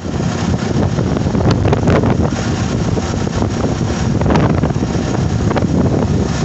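Wind buffeting the microphone of a moving vehicle: a dense, steady rumble with the vehicle's running underneath, and a few faint light clicks.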